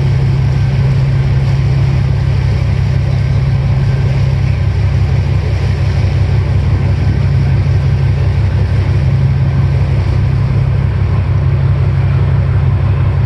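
Charter fishing boat's engine running steadily at low speed, heard from the deck as a constant, loud low drone.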